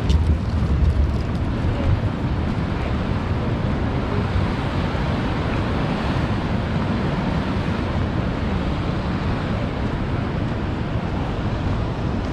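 Steady wind rumbling on the camera microphone, with a broad, even rush of ocean surf under it.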